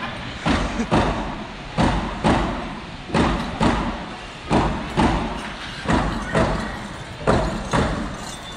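Hand drum beaten in a steady dance rhythm, about two beats a second in a strong-weak pattern, each beat echoing in a large hall.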